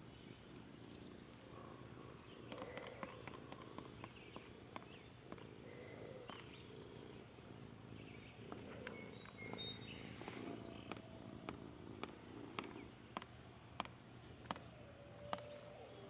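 Quiet rural yard ambience: a faint low steady hum and soft rustling, with scattered light clicks and a few brief, faint bird chirps.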